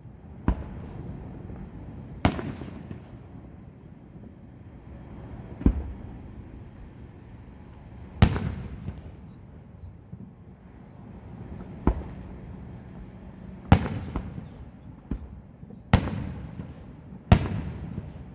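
Aerial fireworks shells bursting in a professional display: about ten sharp bangs at irregular intervals of one to three seconds, each trailing off in a low rumbling echo.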